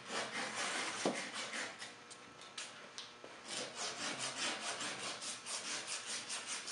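Sandpaper rubbing around the cut end of a copper water pipe, deburring it so a compression fitting will seat properly. It is a run of quick back-and-forth scratching strokes, about four a second in the second half.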